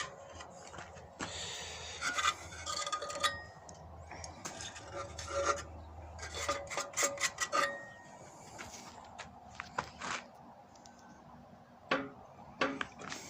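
Metal scraping, rubbing and clinking of loose pieces in a Mercedes E210 exhaust section, with scattered sharp clinks and short metallic rings. The loose pieces are melted exhaust mesh, the cause of the knocking in the muffler.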